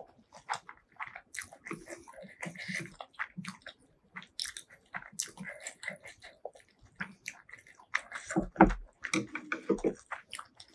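Close-miked eating: irregular wet chewing and biting with many short mouth clicks and smacks, of spicy noodles and enoki mushrooms. A louder low knock comes about eight and a half seconds in.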